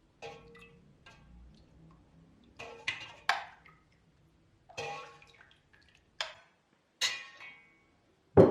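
Handling noises from slime-making: about eight separate clinks and taps of a utensil against a container, some with a short ring, spaced irregularly, the sharpest one near the end.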